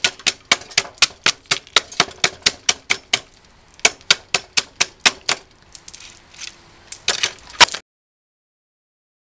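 Claw hammer knocking out the thin wooden slivers left between circular-saw kerfs in a board to clear a dado: rapid sharp blows about four a second, a short pause about three seconds in, another run, then a few scattered knocks and two louder strikes. The sound cuts off abruptly about eight seconds in.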